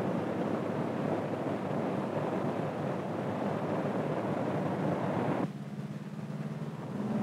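Radial piston engines of a B-17 drone bomber running as it taxis: a steady, even rush of engine and propeller noise. About five and a half seconds in it cuts off suddenly to a quieter bed with low held tones.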